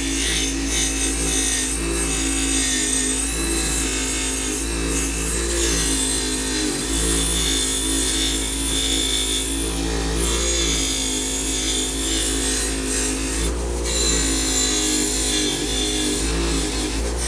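Electric motor driving a wire wheel, with its bristles scratching steadily against a steel lamp shade to strip old paint. The motor's hum wavers as the shade is pressed in, and there is a single sharp click about three-quarters of the way through.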